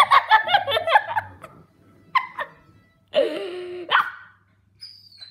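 Husky puppy barking and yipping in play: a quick flurry of yips in the first second, two short yips about two seconds in, and a longer drawn-out call that drops in pitch and ends in a sharp bark near the four-second mark.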